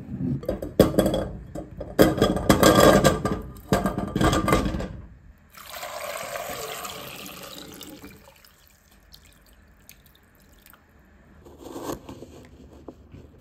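Small potatoes tumbling into a stainless steel pot, a dense run of clattering knocks for about five seconds. Then water pours over them in the pot for about two seconds, with a brief scrape near the end.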